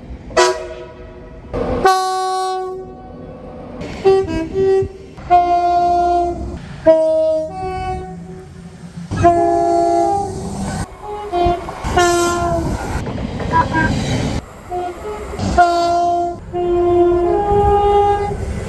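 British train horns sounding a string of short and longer blasts on notes of different pitch, from one train after another, cut abruptly together.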